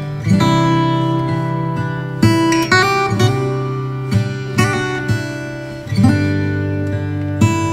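Background music: an acoustic guitar strumming chords, with a new chord struck every second or so.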